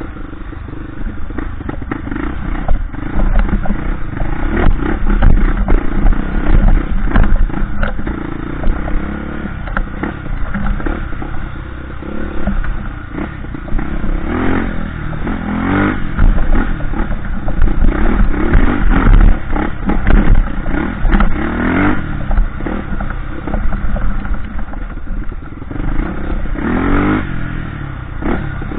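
Dirt bike engine running under load on a trail, revving up and dropping back again and again, with the sharpest revs about halfway and again near the end. Short clattering knocks run through it as the bike rides over rough ground.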